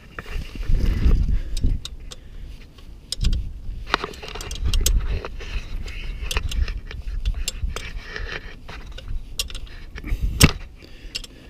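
Parts of a motorcycle radiator guard, its screws and hand tools being handled during fitting: irregular metallic clicks, clinks and knocks with a few low thumps, the sharpest click near the end.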